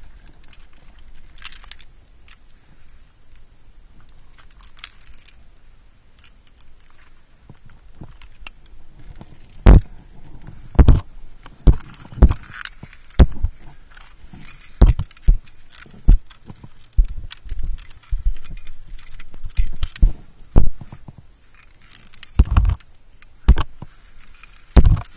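Rock-climbing handling noise: gear clinking and rustling against the rock, then, from about ten seconds in, irregular loud knocks and scrapes as the camera and climber bump the rock, roughly one or two a second.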